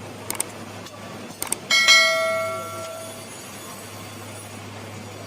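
A few light clicks, then a single bell-like metallic ring that fades out over about a second and a half.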